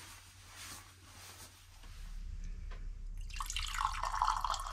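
A hot drink being poured from a stainless steel pot into a mug, a steady stream that starts about three seconds in.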